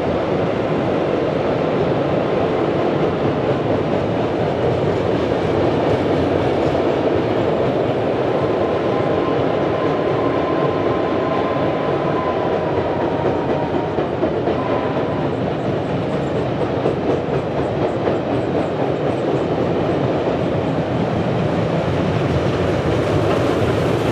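Passenger train rolling across a steel girder trestle bridge: a steady rumble of carriage wheels with clickety-clack over the rail joints, and a faint thin whine for a few seconds in the middle.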